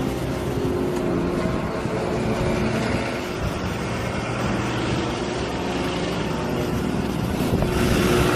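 Hyundai crawler excavator's diesel engine running steadily as the machine works its boom and bucket, growing louder near the end.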